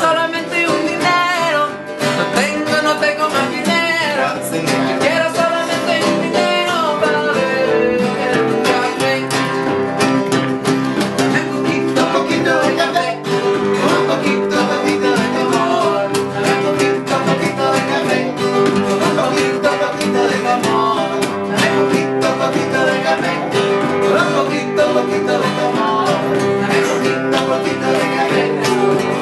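Two acoustic guitars playing together in a steady country-style song, with voices singing along.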